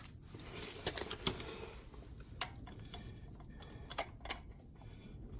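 A handful of sharp, scattered metal clicks and taps as hub bolts are started into a locking hub.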